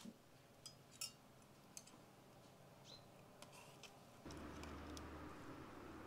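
Faint clinks of a metal ladle against a cooking pot as stew is ladled out, a handful of light ticks in the first four seconds. A little after four seconds a steady low background hum comes in.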